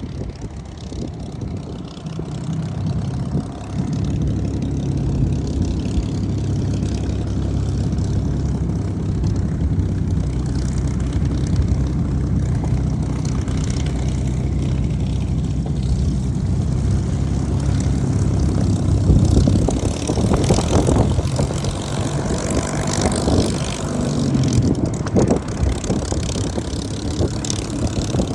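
Supermarine Spitfire's piston engine and propeller running at low taxiing power, a steady low throb. In the last third it grows louder and rougher, surging up and down.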